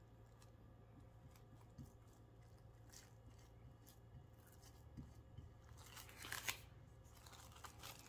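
Faint scattered rubbing and crinkling of plastic wrap being smoothed by hand over a painted glass bottle, with a brief louder crinkle of the wrap about six seconds in.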